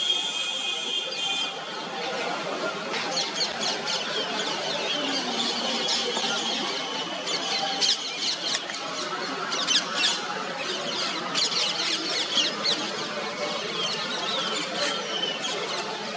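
Birds chirping: quick, high, downward-sliding chirps in clusters over a steady outdoor background hiss, with a held high whistle in the first second or so.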